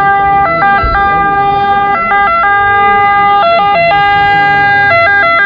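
Ambulance siren sounding loudly: a two-tone siren that holds one note for about a second, then flicks quickly back and forth between its two notes, repeating every second and a half or so.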